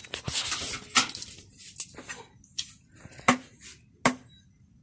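Metal spoon stirring thick semolina dosa batter in a bowl: a wet scraping swirl in the first second, then three sharp clinks of the spoon against the bowl.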